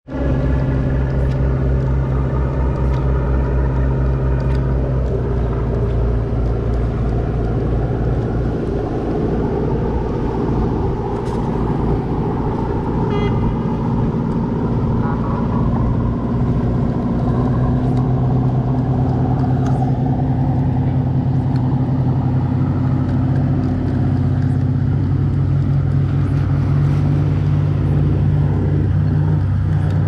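River passenger ferry's engine running with a steady low drone, growing a little louder in the second half as the boat comes close.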